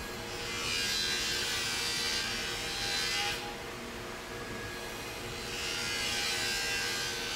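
Tracing lathe rough-cutting a laminated wooden propeller blank: the cutter rasps through the wood in a loud hissing cut that swells, eases off past the middle, and swells again near the end, over the steady hum of the running machine.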